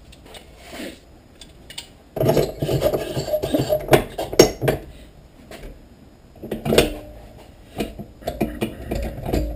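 The stripped handle of an Irwin clamp being worked off its screw: bursts of clicking, rattling and scraping of hard plastic on metal. The handle has stripped and spins loose on the screw. The sounds start about two seconds in and come in three spells with short pauses between.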